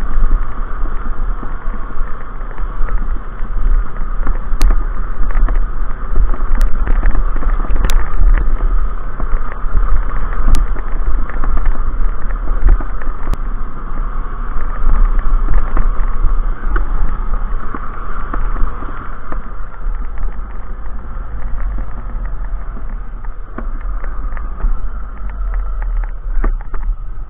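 Trail motorcycle engine running at low speed up a rough gravel and leaf-covered track, with a constant rumble of wind and vibration on the microphone and a few sharp clicks.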